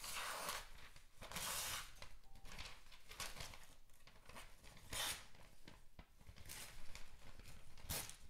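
Thin M390 blade of a PMP User 2 folding knife slicing through a sheet of glossy catalog paper in several separate swishing cuts, with paper rustling and crinkling in between.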